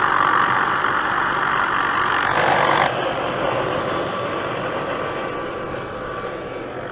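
Helicopter engine and rotor noise close overhead. It drops suddenly about three seconds in, then fades steadily as the helicopter moves away.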